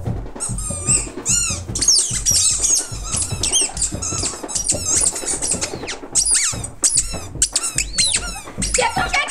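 Rapid high-pitched squeals, several a second, each rising and falling in pitch, over background music with a steady beat.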